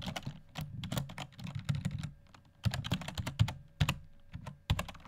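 Typing on a computer keyboard: quick, irregular runs of key clicks with a couple of short pauses.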